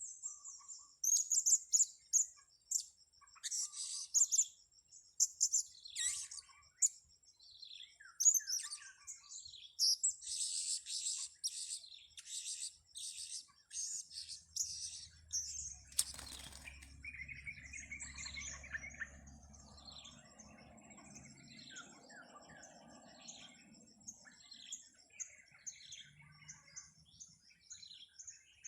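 Serindit (blue-crowned hanging parrots) giving rapid, high-pitched chirping calls, dense at first and thinning after a single sharp click about halfway through.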